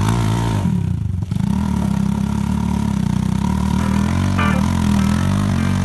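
Dirt bike engine revving hard as the bike struggles over loose rocky ground with its rear wheel spinning. The revs dip briefly about a second in, then hold high.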